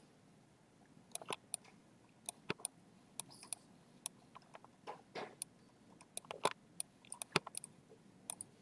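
Irregular, sharp clicks of a computer mouse, more than a dozen spread unevenly over several seconds while a 3D scan is dragged and rotated on screen, the loudest about six and a half and seven and a half seconds in.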